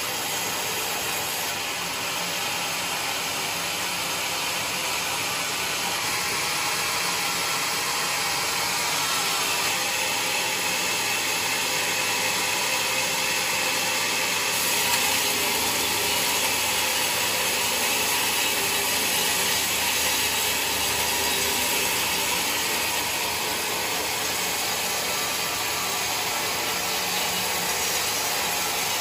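Sawmill running steadily: a continuous mechanical noise with no breaks, growing slightly louder for a while in the middle.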